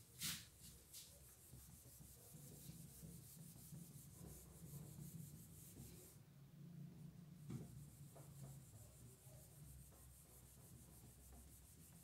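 Near silence: a faint low hum with light rubbing noise, a sharp click just after the start and a softer knock about seven and a half seconds in.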